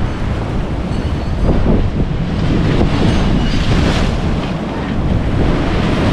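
Sea waves breaking and washing against a rocky shore, with strong wind buffeting the microphone in a steady low rumble.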